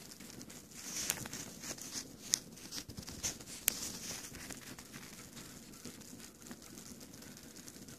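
Footsteps crunching on packed snow, soft and irregular, with three sharp clicks in the first four seconds.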